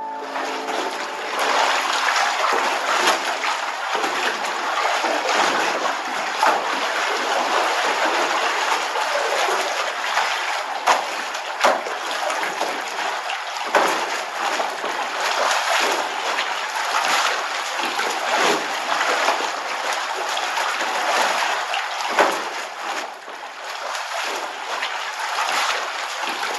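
Laundry being washed by hand in a stone wash trough: water splashing and sloshing as cloth is dunked and scrubbed, with a sharper slap now and then.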